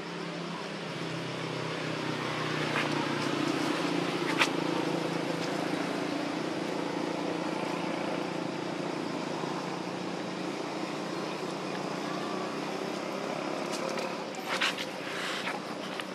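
Steady hum of an engine running in the background, swelling over the first few seconds and then slowly easing off. A single sharp click about four seconds in, and a few short knocks or rustles near the end.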